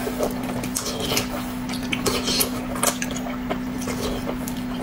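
Eating utensils clicking and scraping against dishes in scattered, irregular taps, over a steady low hum.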